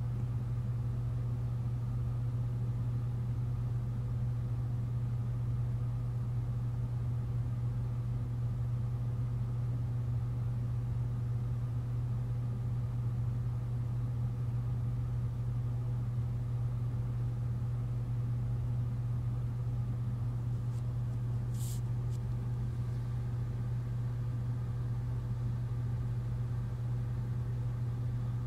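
A steady low hum at an even level throughout, with one brief click about three quarters of the way through.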